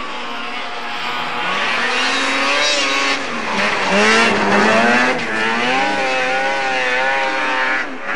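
Lynx racing snowmobile's two-stroke engine revving up and down at race speed. The pitch dips and climbs again, and it is loudest about four to five seconds in as the sled passes close.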